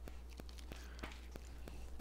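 Pendulum wall clock ticking faintly and evenly, about three ticks a second, over a steady low hum.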